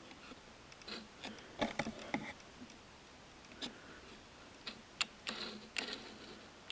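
Scattered light clicks and taps with a few brief rustles: a cardboard box being handled and turned in the hands.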